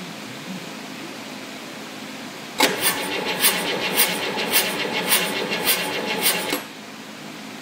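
Detroit Diesel 8V-53 two-stroke V8 diesel cranked over on its starter for about four seconds, with a pulsing beat about twice a second, then cut off suddenly. The uploader says the engine has a broken valve letting compression leak into the exhaust.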